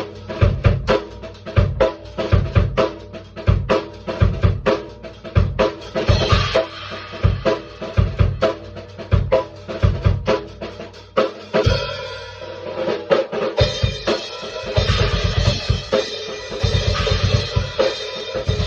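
Drum kit playing a steady beat of kick and snare hits. Cymbal wash comes in about a third of the way through. There is a brief break in the beat about two-thirds of the way in, and then the beat comes back with more cymbal.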